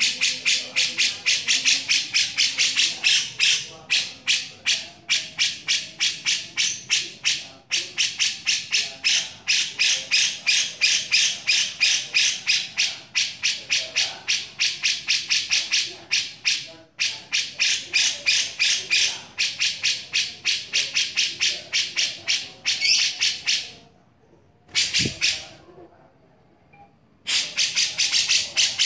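Grey-cheeked bulbul (cucak jenggot) giving its harsh, rapid chattering 'beset' call: long runs of rasping notes at about five a second. The runs are broken by brief pauses and by a silence of about three seconds near the end, after which it starts up again.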